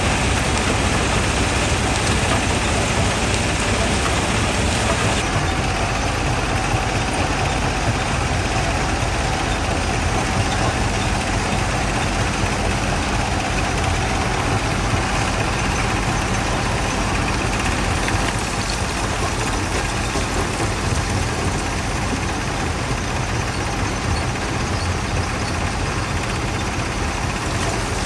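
Quarry jaw crusher plant running: a dense, continuous mechanical din with a low, engine-like drone.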